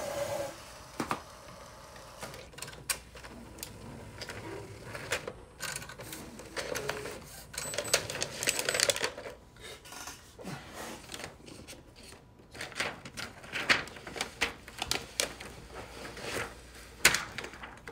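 Epson EcoTank ET-8550 printer's paper-feed mechanism working, with irregular clicks and short bursts of whirring as it tries and fails to feed the film: the printer's paper jam fault.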